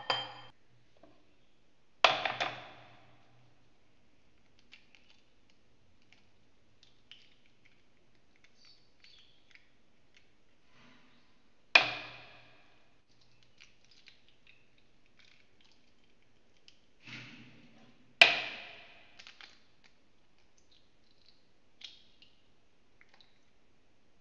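Three eggs knocked against the rim of a glass bowl to crack them, about two seconds in, near the middle and about three-quarters through. Each knock is a sharp tap with a short glassy ring, and small clicks and ticks of shell and drips come in between.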